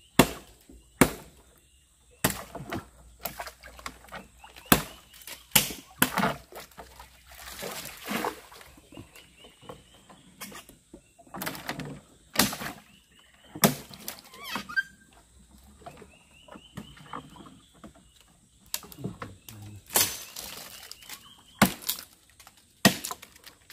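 Irregular chopping strokes of a blade into dead wood, roughly one a second, with a pause after about 15 seconds. A bird calls twice in the middle, each call a quick series of rising chirps.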